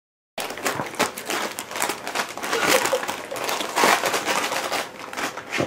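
A beagle mouthing and tearing at a wrapped present: the wrapping paper crinkles and rustles in irregular bursts as the dog pulls at it.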